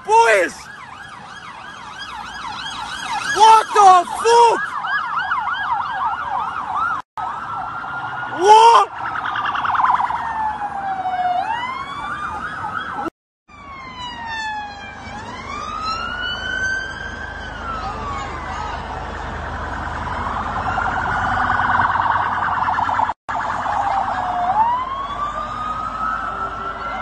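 Garda police car sirens. A fast warbling yelp with a few short, loud blasts over it in the first several seconds, then several sirens overlapping in slow rising and falling wails.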